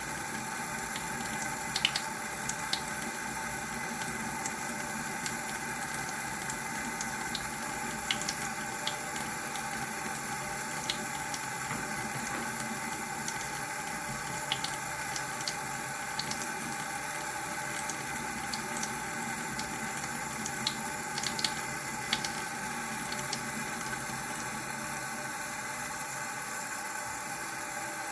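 Water running steadily from a tap into a sink, with a few light clicks now and then.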